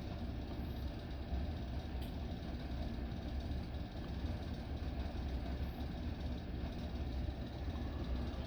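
Ceiling fans, among them a 36-inch Corbett Lighting Calcutta, running steadily at medium speed: an even, low rumble of moving air.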